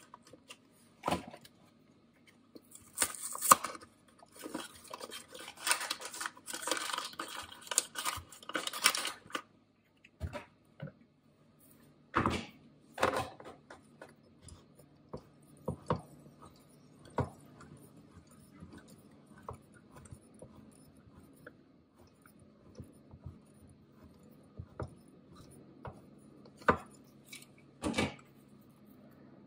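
A cardboard box of rice being torn open: several seconds of tearing, then scattered clicks and small knocks as a can is opened on a wooden cutting board.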